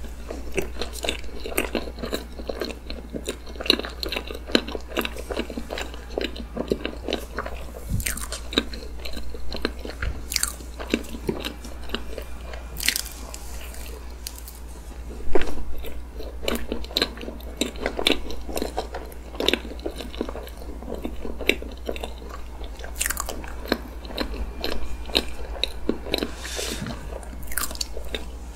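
Close-miked eating of whipped-cream cake: chewing and many small wet mouth clicks as spoonfuls are taken and chewed, over a steady low hum.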